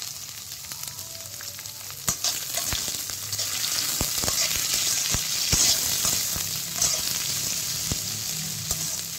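Sliced onions sizzling in hot oil in a kadhai, being fried until brown, while a metal spatula stirs them with repeated knocks and scrapes against the pan. The sizzle grows louder about two seconds in.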